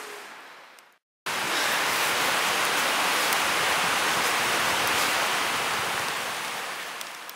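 Wood campfire burning under a hanging pot: a steady rushing hiss with a few faint crackles, cutting in abruptly about a second in and fading near the end.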